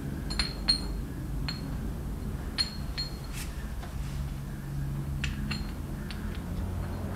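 Light metallic clinks and taps of small steel parts, a new universal joint and its bearing cups being handled and fitted at the workbench: about a dozen scattered clicks, several ringing briefly.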